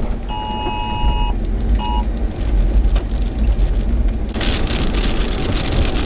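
Two-tone emergency alert signal for a tornado warning, sounding in short bursts and cutting off about two seconds in, over a steady low vehicle rumble. About four seconds in, a loud rushing hiss comes in.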